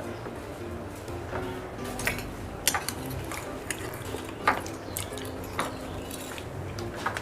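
A spoon clinking and knocking against bowls and dishes: a handful of separate sharp clicks spread a second or so apart.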